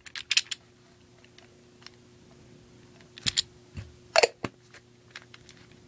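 A soda can handled in the hands: a few light clicks and taps, the loudest just past four seconds in, over a faint steady hum.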